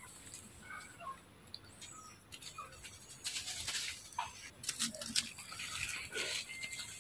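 Scattered rustling and crunching in dry leaves, with a few faint short chirps.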